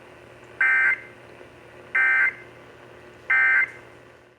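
Emergency Alert System end-of-message data tones heard over AM radio: three short, identical, buzzy bursts of rapidly alternating high tones, about 1.4 s apart, over faint hiss and hum. They mark the end of the alert.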